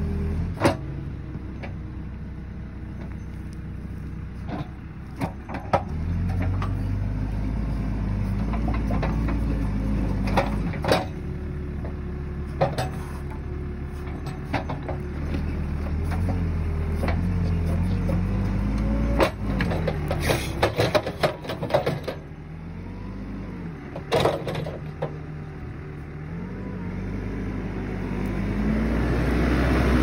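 Backhoe loader's diesel engine working under load in deep mud, its pitch rising and falling as it revs, with scattered sharp knocks and clanks, a cluster of them about twenty seconds in. It grows louder near the end as the machine comes close.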